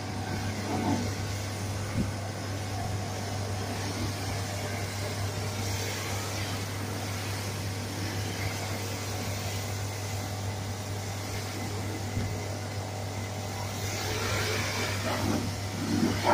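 Self-service car wash machine running with a steady low hum and a constant hiss.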